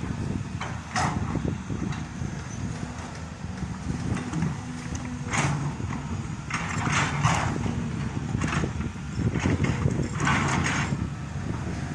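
Excavator's diesel engine running steadily under load, with short bursts of clattering and scraping from the digging work about a second in and several times in the second half.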